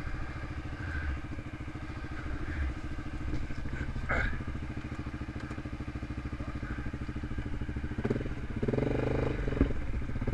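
Yamaha Grizzly ATV engine running steadily at idle. About eight seconds in the sound grows louder and busier, with a sharp knock shortly after.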